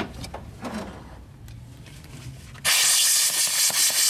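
Compressed air hissing from a blow gun with a long nozzle, blowing out a freshly tapped head bolt hole in the engine block. The loud, even blast starts suddenly about two-thirds of the way in, after a stretch of faint handling clicks.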